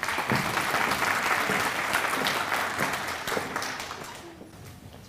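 Audience applauding, fading out over the last second or so.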